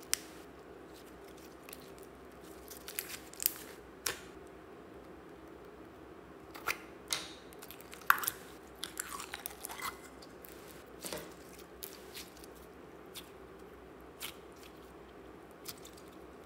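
Slime squeezed and kneaded between the fingers, giving irregular sticky pops and crackles, with small clusters of them and quiet gaps between.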